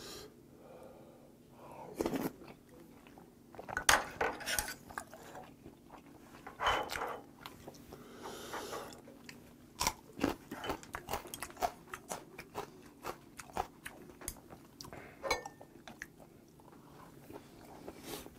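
Close-up eating sounds: chewing and crunching, with a crisp bite into a raw green chili pepper about ten seconds in, followed by quick crunchy chewing.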